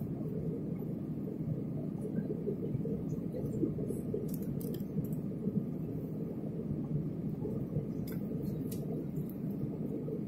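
Steady cabin rumble of a jet airliner in flight, the engine and airflow noise heard from a window seat, with a few faint clicks.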